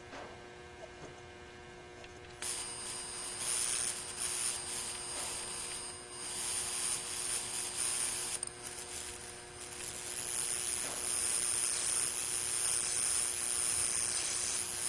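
High-voltage arc from a small plasma-globe flyback transformer, struck about two and a half seconds in: a sizzling hiss with a steady high whine, weakening briefly twice, as it melts the tips of individual stranded-wire strands into beads. Before the arc there is only a faint mains hum.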